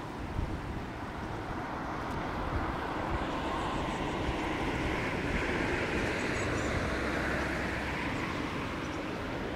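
A motor vehicle passing by, its noise swelling over a few seconds and then fading, over a steady wind rumble on the microphone from the moving bicycle.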